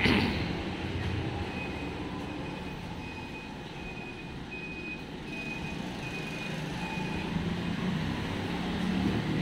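Steady low rumble of vehicle noise, with a row of short, evenly spaced high beeps, about one every two-thirds of a second, from about a second and a half in until near the end. There is a short knock right at the start.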